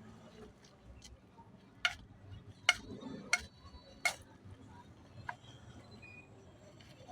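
A handful of sharp, separate clicks and taps, about five spread over a few seconds, as small hard parts are handled and fitted together.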